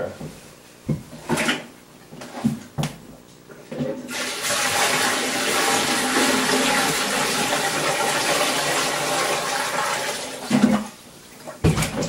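Melted snow poured from a bucket into a toilet's open tank: a steady rush of water lasting about six seconds, starting about four seconds in. A few knocks come before it and a couple of thumps come near the end.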